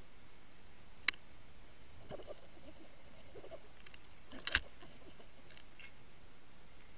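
Underwater sound picked up by a towed underwater camera while trolling: a steady water hiss with two sharp clicks, about a second in and again about four and a half seconds in, and a few faint rattles between.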